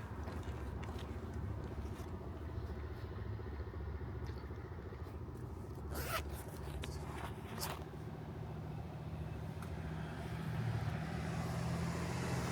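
Road traffic rumbling steadily, with two sharp clicks a little past the middle and a vehicle growing louder near the end.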